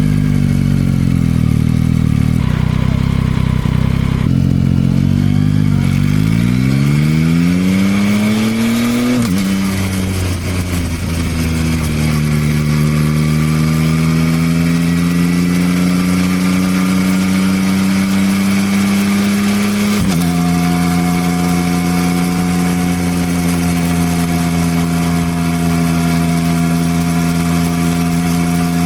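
Yamaha XSR900's inline three-cylinder engine running under way: the revs climb steadily for a few seconds, drop at a gear change about nine seconds in, climb more slowly, change again around twenty seconds in, then hold steady at a cruise.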